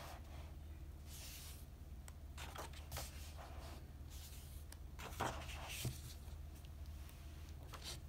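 Pages of a paperback activity book being turned by hand, with several soft paper swishes and rustles every second or two over a faint steady hum.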